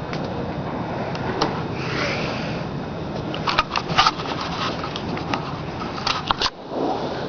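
High wind blowing steadily, with quick sharp rattles or knocks in two clusters, about three and a half seconds in and again near six seconds. The wind noise drops away suddenly just after the second cluster.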